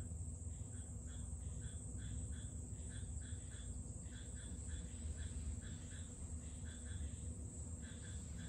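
A small animal chirping: short high chirps repeated about three a second in little groups of two or three, over a steady high hiss and a low hum.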